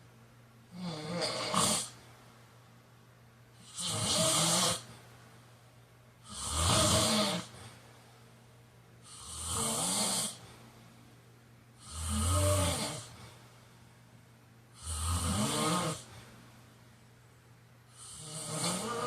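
A man snoring: seven snores of about a second each, coming in an even rhythm roughly every three seconds.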